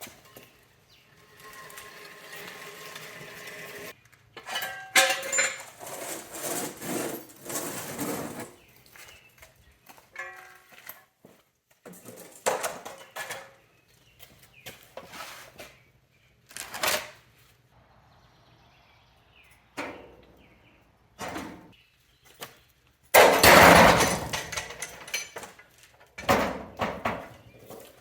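Irregular metallic clanks and knocks, some ringing briefly, as metal parts and tools are handled, with a loud clattering stretch a little over twenty seconds in.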